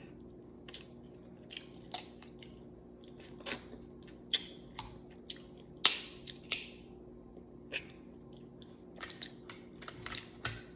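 Close-up eating sounds: chewing and lip smacks, with sharp cracks and snaps of crab-leg shells being broken open by hand at irregular moments, the loudest about six seconds in. A faint steady hum runs underneath.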